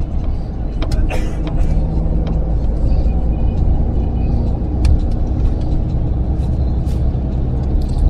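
Steady low rumble of a moving bus heard from inside the cabin: engine and road noise, with a few sharp clicks scattered through it.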